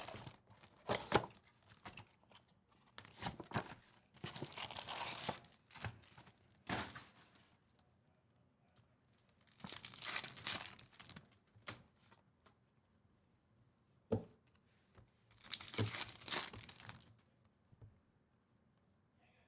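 Foil trading-card pack wrappers and box wrapping being torn open and crinkled by hand, in several bursts of rustling with quiet pauses between and a single sharp click partway through.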